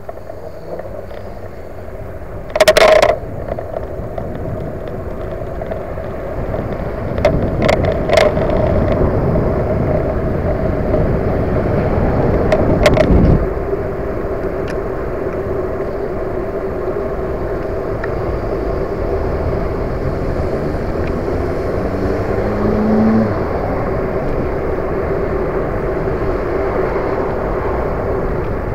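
E-bike riding along a road: steady tyre and wind noise with a steady hum, and sharp knocks or rattles over bumps, the loudest about three seconds in and more around eight and thirteen seconds in.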